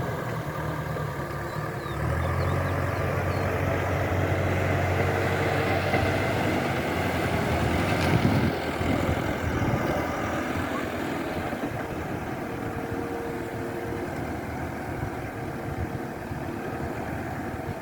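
An engine running at idle with a steady low hum; about halfway through the hum turns rougher and less even.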